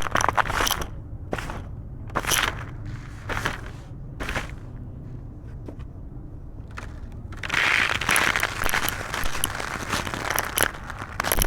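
Black concrete crumbling and crunching: several separate crunches, a quieter stretch, then dense continuous crumbling about two-thirds of the way in.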